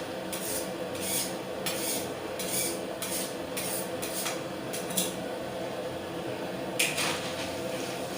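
Repeated short scraping strokes, about two a second, over a steady low hum; the strokes pause for about two seconds late on, then resume.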